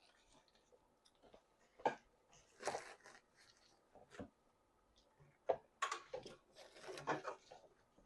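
A person chewing food with wet mouth smacks and clicks, coming in irregular clusters with short quiet gaps between.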